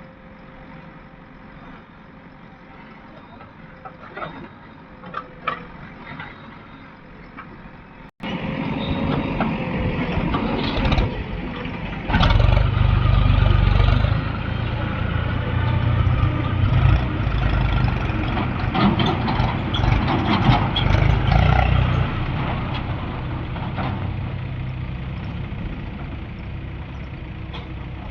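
Heavy diesel machinery working: a quieter stretch of engine noise with a few short knocks, then after an abrupt cut about eight seconds in, a loud diesel engine running, louder still a few seconds later.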